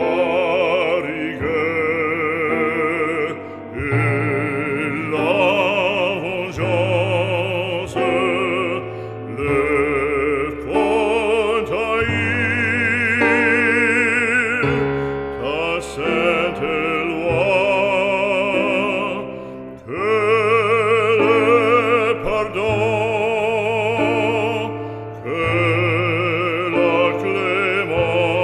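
Background music: a solo operatic voice singing with strong vibrato over sustained instrumental accompaniment.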